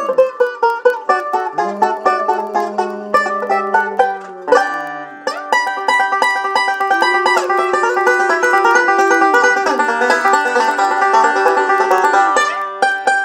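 Basset hound puppy howling along to a Gibson resonator banjo. Long held howls slide in pitch over the rapid picked banjo notes.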